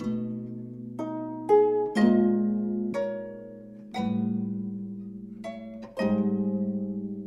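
Gayageum ensemble playing slow plucked chords, a new one about every second, each ringing out and fading; about six seconds in a low note wavers.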